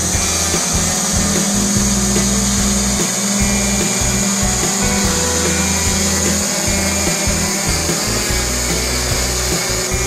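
Heavy-lift multirotor camera drone hovering, its motors and propellers buzzing steadily, under background music.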